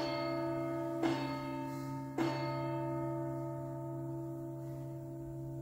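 Consecration bell struck three times, about a second apart, at the elevation of the host; each strike rings on, overlapping the last.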